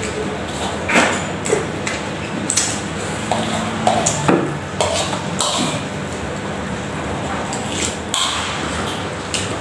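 Instant noodles being slurped and chewed, with a fork clinking and scraping against a metal wok many times, over a low steady hum.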